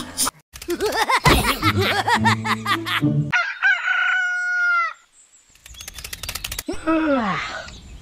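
A rooster crows once, about halfway through, after a stretch of music. Near the end comes a falling, voice-like sound.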